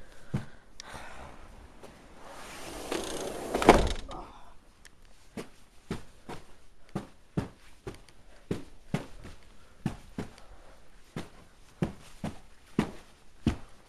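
A rushing burst of noise swells and ends in a loud thump about four seconds in. Then footsteps crunch steadily through deep snow, about two steps a second.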